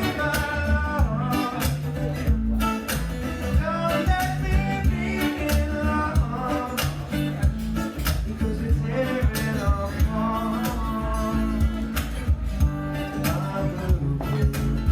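Music: a singer with guitar over a steady looped beat and bass line.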